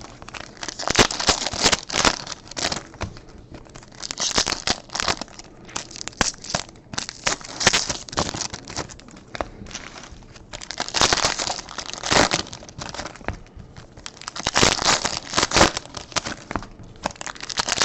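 Foil trading-card pack wrappers being torn open and crinkled by hand, in irregular bursts of crackling separated by short quieter pauses.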